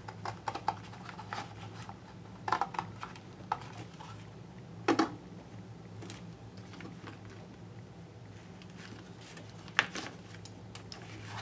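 Scissors cutting through thick, firm cardboard: scattered snips and clicks, the loudest about five seconds in and another near ten seconds, over a steady low hum.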